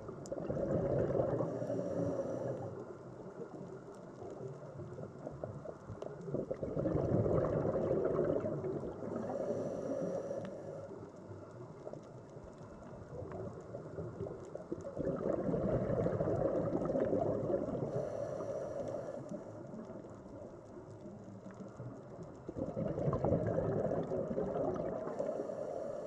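Scuba diver breathing through a regulator: exhaled bubbles gurgle and rumble in four swells about every eight seconds, each with a short faint hiss.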